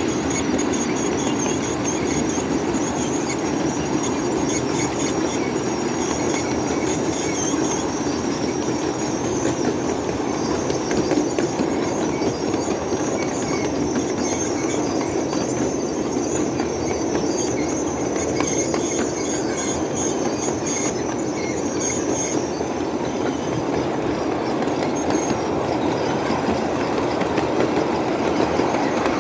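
Ride-on scale train rolling downhill with its brakes on: a steady rumble of wheels on rail with clickety-clack, and a high-pitched brake squeal that comes and goes, dying away about twenty-two seconds in.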